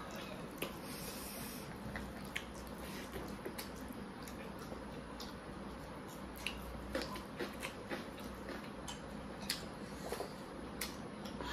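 Eating sounds picked up close: fingers mixing rice and dal on the plates, chewing and lip smacks, heard as scattered small clicks and smacks over a steady hiss.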